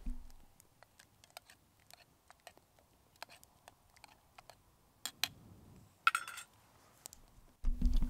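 Campfire of birch logs crackling, with irregular sharp snaps and pops and a louder burst of crackle about six seconds in. Near the end it gives way to a low rumble.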